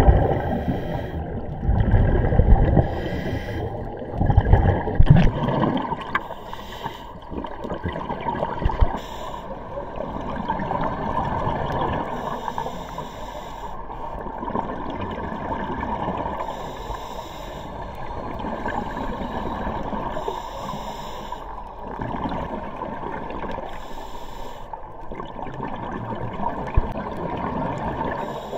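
Scuba diver breathing through a regulator underwater: a hissing inhale and a burst of gurgling exhaust bubbles, repeating about every three seconds. Heavy low rumbling fills the first few seconds.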